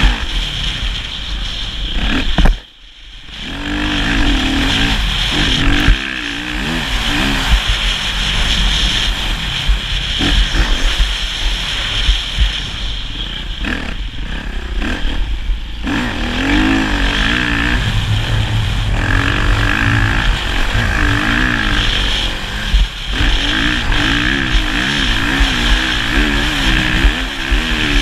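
Motocross motorcycle engine revving up and down again and again with the throttle, over a constant low rumble. It goes briefly quiet about three seconds in, then builds again.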